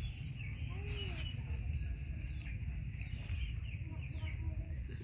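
Birds chirping in a garden: a few short, high chirps over a steady low rumble.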